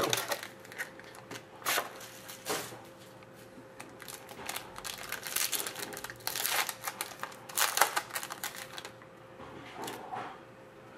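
Hands opening and handling a box of Panini Limited hockey trading cards: irregular rustling, crinkling and small clicks of packaging and cards, coming in clusters and quieter near the end.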